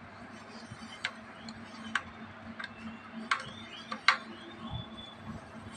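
Sharp metallic clicks and taps, about five spread over the few seconds, from an Allen key working the bolts of a bicycle's mechanical disc brake caliper, over a faint steady hum.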